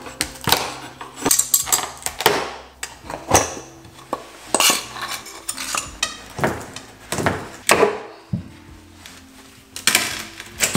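Baseboard trim being pried off a wall with a metal pry bar: a string of irregular sharp metallic clicks, taps and knocks.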